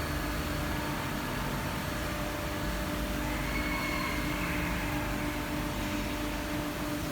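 OKK PCV-55 CNC vertical machining centre running on a test after repair: a steady mechanical hum, with a faint higher whine rising and fading in the middle.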